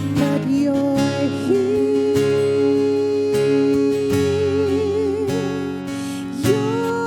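A song with acoustic guitar strumming under a voice holding long notes with vibrato.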